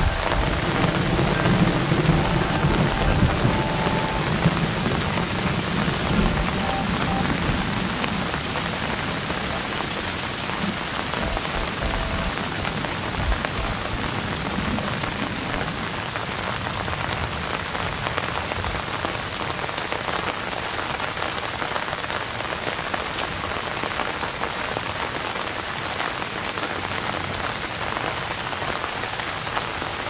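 Steady rain falling on apple tree leaves. A low rumble of thunder runs under it for the first several seconds and then fades away.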